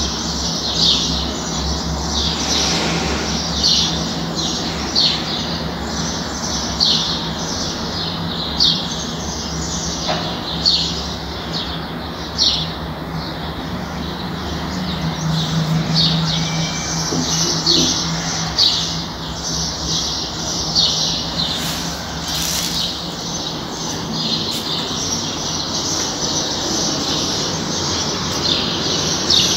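Birds chirping over and over, short high chirps about one or two a second, over a steady low hum of street traffic.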